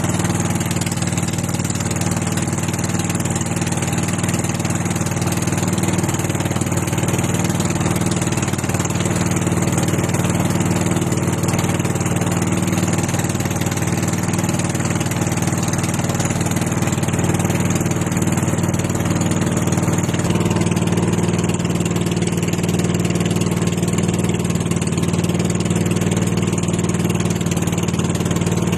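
Small gasoline engine of an outrigger pump boat running at a steady speed, a constant drone whose tone shifts slightly about two-thirds of the way through.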